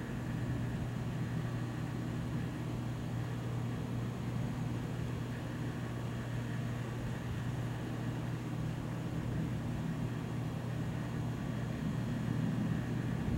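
A steady low hum over a faint background hiss.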